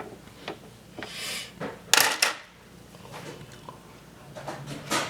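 Light clicks and knocks of things being handled, with a louder brief clatter about two seconds in.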